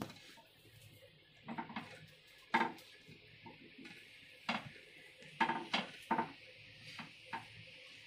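Spatula knocking and scraping on a non-stick pan as toasted sandwiches are flipped over: a string of about ten short, irregular knocks and scuffs.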